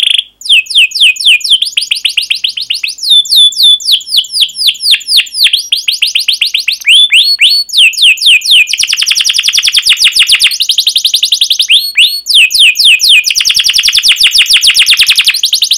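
Domestic canary in full song: strings of sharp, quickly repeated down-sweeping 'cuit cuit' notes that break into fast, dense rolling trills about halfway through and again near the end.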